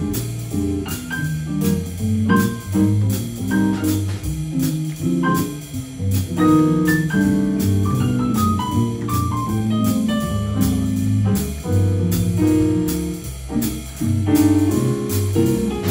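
Live jazz band music: a keyboard playing a single-note solo line over a stepping bass line and a steady cymbal beat, with no saxophones to the fore.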